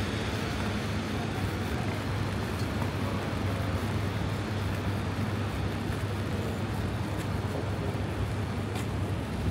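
Steady city street traffic: vehicle engines and tyre noise with a constant deep engine hum.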